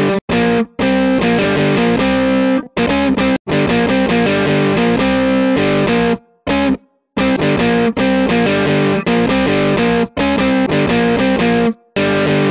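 Music played on a distorted electric guitar, repeatedly stopping dead for a split second and starting again.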